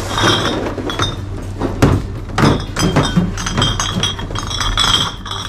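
Empty glass beer and soju bottles clinking against one another as they are lifted out of a plastic crate and sorted, with repeated sharp glassy clinks and ringing.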